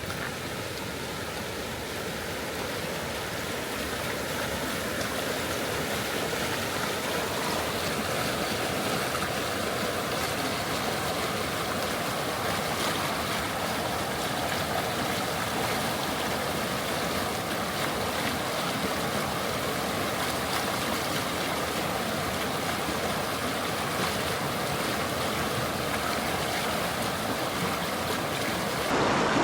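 Flowing river water rushing steadily, growing slightly louder over the first few seconds and turning louder again right at the end.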